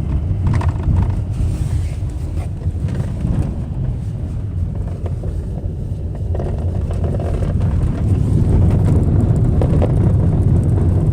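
Renault Mégane III driving slowly on gravel: a steady low rumble of tyres on stones, with a few short knocks from the car's underside that the owner cannot identify.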